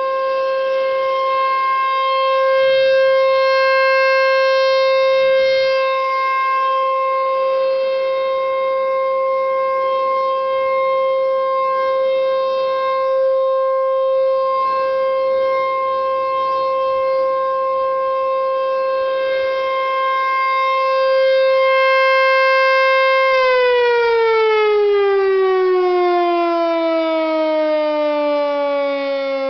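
American Signal Corporation T135 AC/DC rotating outdoor warning siren sounding its steady one-tone alert, the loudness swelling a little as the rotating horn sweeps round. About 23 seconds in the alert ends and the pitch falls steadily as the siren winds down.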